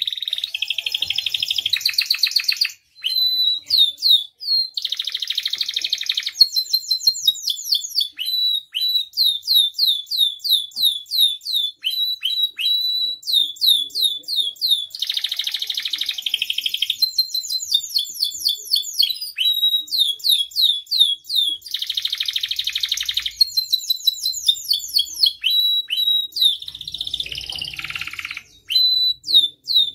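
Domestic canary in full song: fast runs of short, down-slurred chirps alternate with several buzzy, rolling trills, with only a brief pause about three seconds in.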